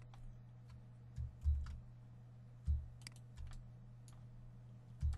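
Computer keyboard keys and mouse buttons clicking sparsely as the Control key is pressed and the right mouse button clicked to select edges, with a few dull low thumps, the loudest about a second and a half in and again near three seconds, over a low steady hum.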